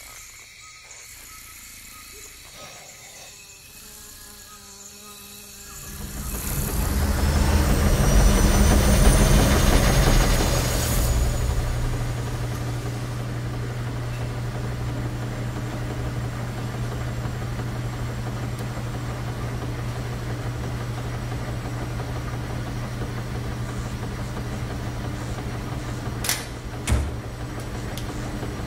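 A loud whoosh swells up about six seconds in with a rising whine, then settles into the steady low hum of a washing machine's spinning drum and the laundromat's machines. Two sharp knocks near the end.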